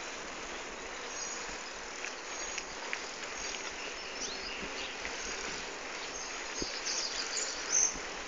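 Steady rushing outdoor noise of a bicycle ride down a paved street, with short high chirps repeating over it and a brief sharper chirp near the end.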